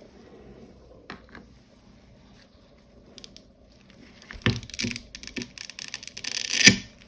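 3D-printed plastic being broken out of keycap stem cavities: a couple of small clicks, then a run of crackling and snapping from about four seconds in, ending in the loudest crack near the end.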